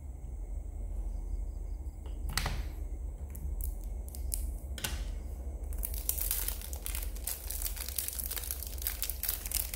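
Handling noise as lighters are swapped: a couple of separate clicks, then dense crinkling and rustling from about halfway on.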